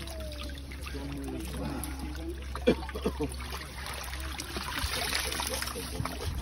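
Water splashing and trickling as fish thrash in a crowded seine net and are scooped out with a landing net, with sharp slaps about two and a half seconds in. A steady low hum runs underneath, and faint voices are heard at the start.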